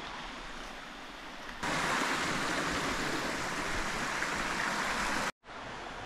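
Steady rush of flowing stream water. It gets louder about a second and a half in and cuts off abruptly just past five seconds, after which a quieter rush follows.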